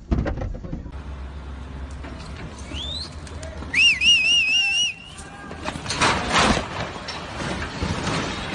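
A loud warbling whistle, held about a second, over a low steady rumble of heavy machinery; a short rising whistle comes just before it. Around six seconds in a rough burst of noise follows.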